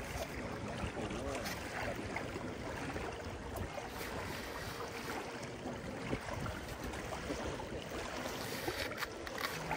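Outdoor wind blowing across the microphone, with the faint wash of small waves at the water's edge.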